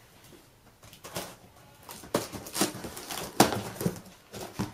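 Cardboard box being cut open along its sides and its flaps worked loose: a string of irregular scrapes, rustles and knocks after a quiet first second, the sharpest about three and a half seconds in.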